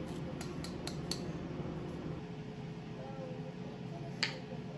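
Light kitchen handling over a steady low hum: a few small clicks from a handheld cheese grater over a wooden salad bowl in the first second, then one sharper click about four seconds in as a jar of dressing is poured.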